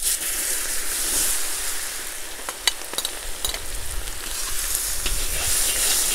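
Onions tipped into hot oil in a kazan, hitting it with a sudden sizzle that goes on as a steady frying hiss. A few sharp clicks come about three seconds in.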